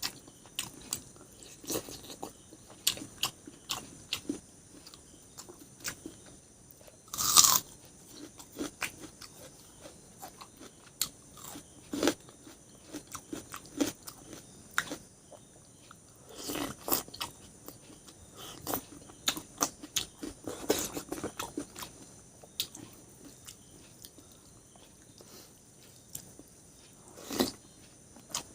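Close-up eating sounds: a person chewing and biting, with scattered clicks and crunches, and one louder brief noisy burst about seven seconds in.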